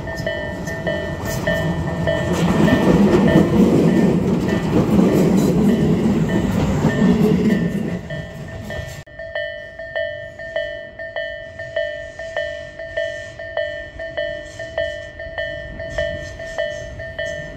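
A Kameido Line commuter train passing on the tracks, its rumble swelling for several seconds and then dying away. Over it a level-crossing alarm rings in an even clang, about two strikes a second, and goes on alone after the train has gone.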